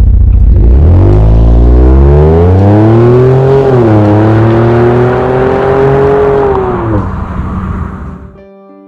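Ford Edge with a custom exhaust fitted with bypass valves pulling away hard. The exhaust note climbs in pitch, drops once at a gear change, climbs again and fades as the car drives off. Background music starts near the end.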